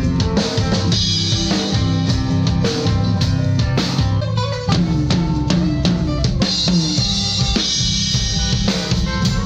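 Live band playing an instrumental passage: a drum kit with bass drum and snare hits driving under electric guitars.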